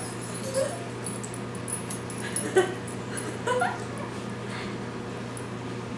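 A few short, high-pitched bursts of laughter and squeals, over a steady low hum.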